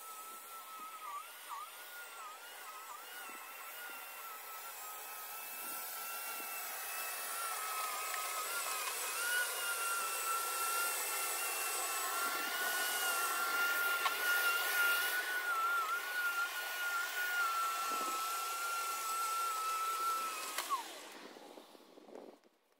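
Corded electric lawn scarifier running with a steady high motor whine that wavers in pitch as it works the turf. About twenty seconds in it is switched off and the whine falls away as the motor spins down.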